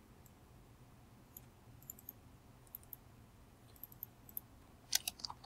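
Faint clicking of a computer mouse and keyboard: a few scattered clicks, then a louder cluster of clicks near the end.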